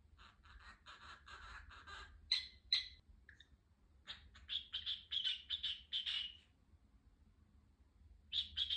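Cockatiel chattering and chirping in runs of quick notes, with two sharp, loud chirps a little over two seconds in. After a pause of a couple of seconds, another run of chirps starts near the end.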